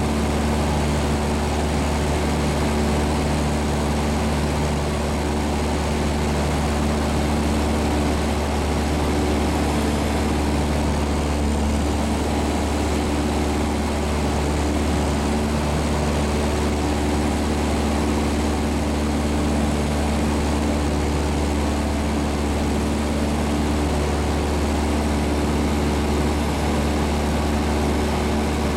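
Light aircraft's propeller engine running steadily in level flight, heard from inside the cabin: a constant low hum with several steady tones above it and a rushing hiss.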